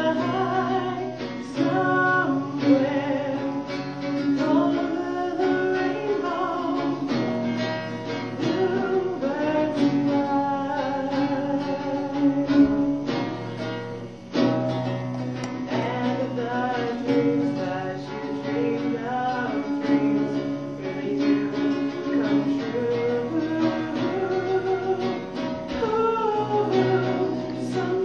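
A song with strummed acoustic guitar and a voice singing over it.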